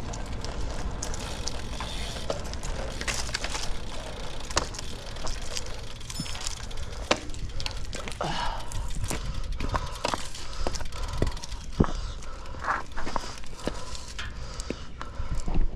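Bicycle being ridden, with a steady rumble of wind on the microphone and many scattered clicks and rattles.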